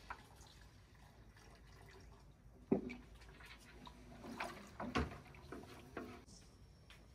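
Water being poured into a large metal cooking pot of broth and stirred with a wooden spoon, with liquid splashing and dripping. A few sharp knocks of the spoon against the pot, the loudest about three seconds in and another about five seconds in.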